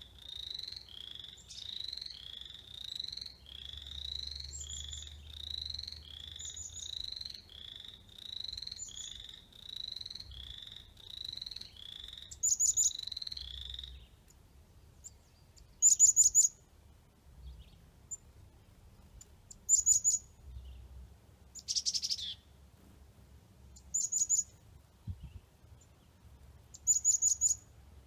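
Frogs calling: a steady run of short rising notes, about one and a half a second, that stops about halfway through. A bird then takes over with short, sharp, high chirping phrases every few seconds, louder than the frogs.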